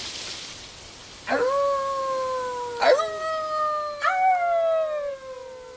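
Wolf-like howling: three long overlapping howls, each starting with a quick rise in pitch and then sliding slowly down.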